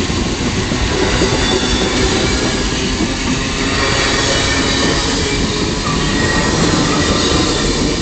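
Amtrak Superliner passenger cars rolling past close by, a steady loud rush and rumble of steel wheels on rail as the train gathers speed, with faint high thin squealing from the wheels.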